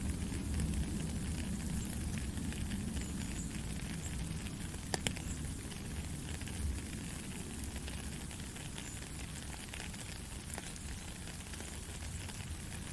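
Heavy rain falling steadily, an even hiss with a dense patter of drops and a low rumble underneath that eases a little in the second half. A sharp drop tick stands out about five seconds in.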